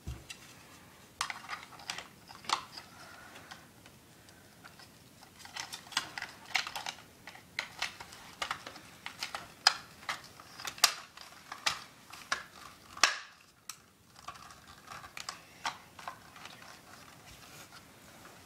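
Irregular sharp clicks and light plastic knocks from a GameFace M4 carbine airsoft gun being handled and its parts worked, several in quick runs with short gaps between.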